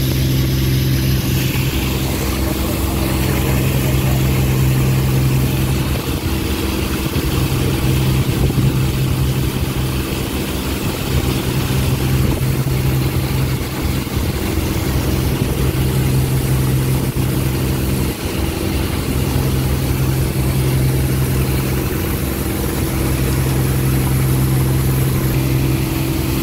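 Ferry boat's engine running steadily underway, a low drone that swells and eases every few seconds, with a steady hiss above it.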